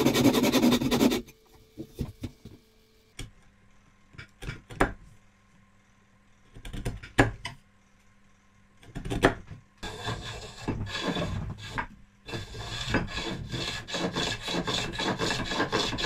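A backsaw cuts briefly into a wooden bar. Then come scattered sharp taps and knocks of chisel work, the loudest about seven seconds in. From about ten seconds in, a wooden bull nose hand plane takes quick repeated strokes along the bar, a steady rasping that peels off curled shavings.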